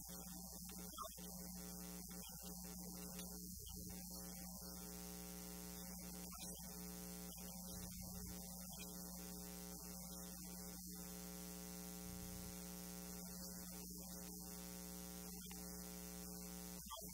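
Steady electrical mains hum: a buzz with a string of even overtones, over a high hiss.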